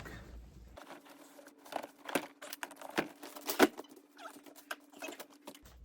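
Items being handled and rummaged through in a box: irregular light rustling, clicks and knocks, the sharpest about three and a half seconds in, over a faint steady hum.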